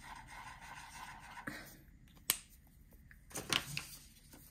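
A pen scratching on paper as a circle on a printed sheet is coloured in, for about a second and a half, then a single sharp click about halfway through and a brief rustle of paper near the end.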